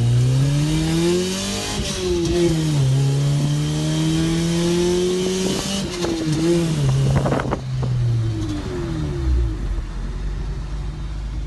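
Acura Integra's four-cylinder engine and exhaust heard from inside the cabin under acceleration. The revs climb, dip at a gear change about two seconds in, and climb again, then fall away from about six seconds and settle lower near the end. The exhaust comes through loudly via the open shifter hole in the floor, with a brief rattle about seven seconds in.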